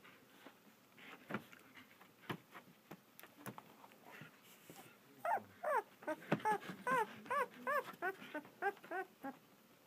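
Two-week-old German Shepherd puppies whimpering: a run of short squeaks that rise and fall in pitch, three or four a second, starting about halfway through. Before that there are only a few faint small knocks.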